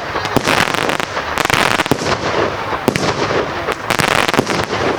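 Fireworks going off in a display: a dense, continuous run of crackles with many sharp bangs and cracks.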